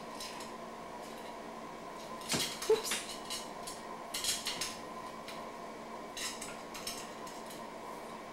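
A kitten scrambling on a kitchen chair: scattered light knocks and clattering claw clicks, the loudest cluster about two and a half seconds in and another about four seconds in, over a faint steady hum.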